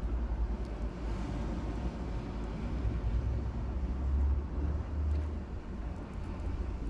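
Wind buffeting the microphone: an uneven low rumble that swells and eases, loudest about four to five seconds in.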